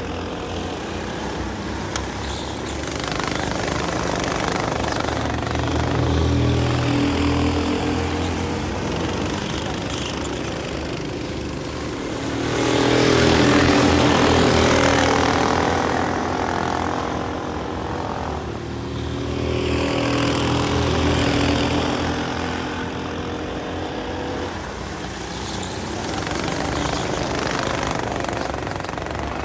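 Several racing go-kart engines buzzing round the circuit, their note swelling and fading as the karts pass, loudest about halfway through when karts go by close.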